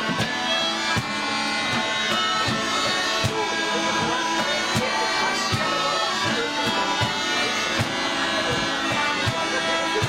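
An ensemble of Scottish smallpipes plays a traditional tune in unison over their steady drone, with fiddle and accordion in the mix. A regular low beat keeps time underneath.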